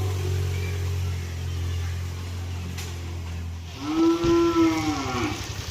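Motor vehicle engine running with a steady low hum. About four seconds in the hum gives way to a low rapid pulsing, over which a loud long call rises and then falls in pitch, lasting about a second and a half.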